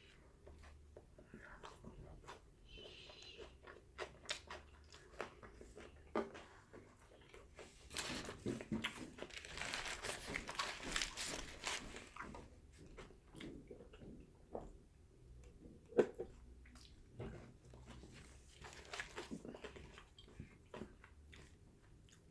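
Close-up chewing and biting of a Subway tuna sub with crisp vegetables: faint, scattered mouth clicks and soft crunches, with a louder, busier stretch of chewing in the middle.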